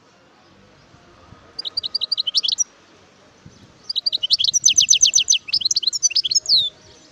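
European goldfinch singing: two phrases of quick, high chirping notes, the first about a second and a half in, the second longer, with a fast trill in its middle and ending on a falling note.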